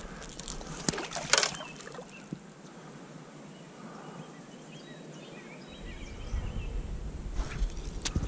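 Outdoor river ambience: a couple of sharp knocks about a second in, faint bird calls in the middle, and a low wind rumble on the microphone from about six seconds in.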